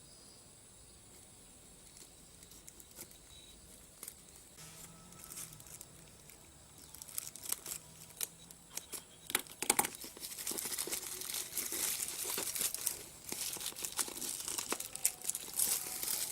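A parcel's packaging being torn open by hand: faint at first, then scattered crackles about seven seconds in, building into steady crinkling and tearing from about ten seconds on.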